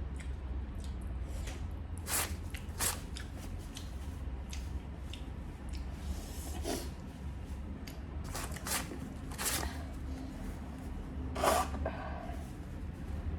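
Eating sounds: scattered short smacks and clicks of chewing and handling food, about six in all, over a steady low hum.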